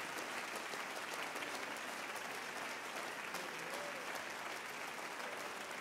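A congregation applauding, many hands clapping steadily in praise.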